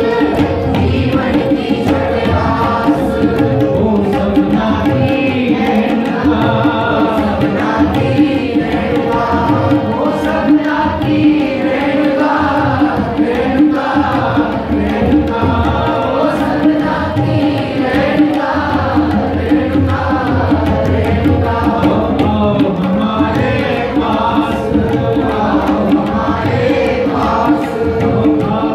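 Sikh shabad kirtan: voices singing over two harmoniums holding steady chords, with several tabla sets playing together in a fast continuous rhythm.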